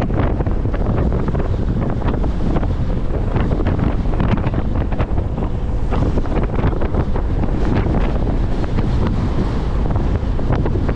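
Strong wind buffeting the microphone during a ride in a dust storm: a loud, steady low rumble with constant crackling gusts.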